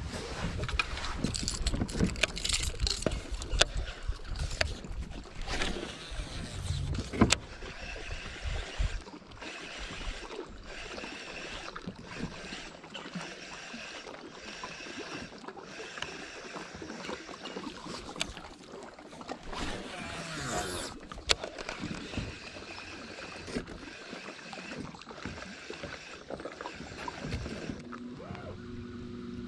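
Knocks, clicks and clatter of fishing gear being handled aboard a plastic fishing kayak, thickest in the first several seconds, over a steady background rush.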